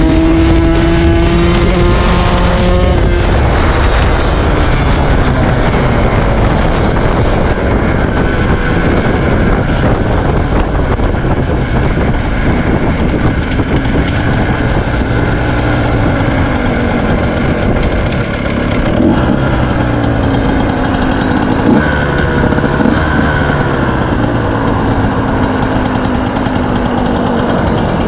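KTM 125 SX's single-cylinder two-stroke engine heard onboard while riding. It is held high in the revs at first, backs off a few seconds in, then rises and falls in pitch as the bike slows. There are three short sharp sounds about two-thirds of the way through.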